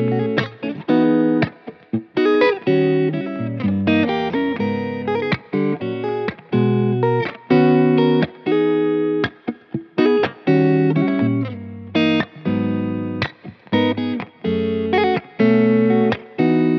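Vola OZ RV TNC electric guitar playing chords and riffs, ringing out in short phrases that are choked off abruptly many times.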